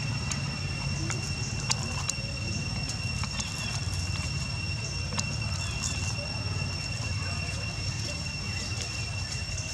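A macaque biting and tearing at the fibrous husk of a green coconut: scattered short crunching clicks. Behind them run a steady high-pitched whine and a low hum.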